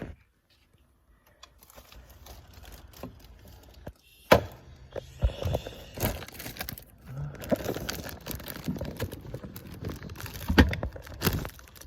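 Handling noise from a recording phone being moved about and set down inside a fridge: a series of knocks, clicks and rustling against the microphone, starting after a near-quiet first second or so, with the sharpest knocks about four seconds in and again near the end.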